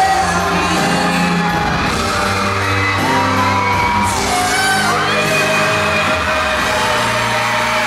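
Live pop-rock band playing, with a male lead vocalist singing long held notes that slide in pitch, echoing in a large hall.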